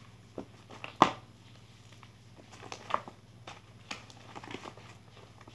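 Fluffy slime made from white glue and shaving cream being kneaded by hand, giving scattered short sticky clicks and pops, the loudest about a second in.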